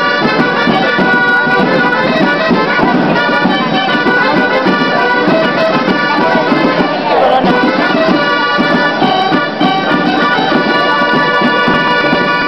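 Gralles, the Catalan shawms, playing the nasal reedy melody that accompanies the building of a human tower, with a busy crowd murmur underneath.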